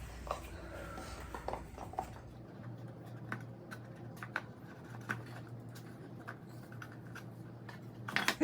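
Scattered light taps and clicks of small birdhouse-kit pieces being handled and fitted together on a tabletop, over a faint steady hum.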